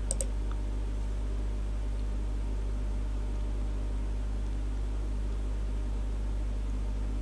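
Two quick computer mouse clicks right at the start, over a steady low electrical hum.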